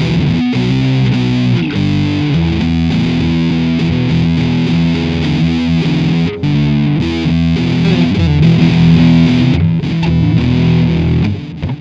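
Outro music: distorted electric guitar playing a rock riff.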